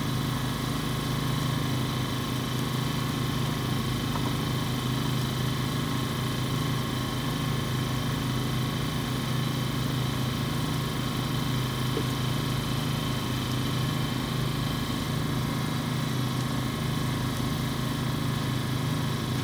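An engine running steadily at a constant speed, a low unchanging drone.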